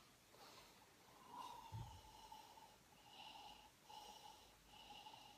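Near silence: faint breathing through the nose while drinking from a wine glass, with a faint whistling note that comes and goes several times and one soft low thump about two seconds in.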